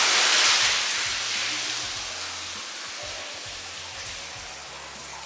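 Water rushing from a tap pipe into an empty tiled bath, a steady hiss that is loud at first and fades gradually over the next few seconds.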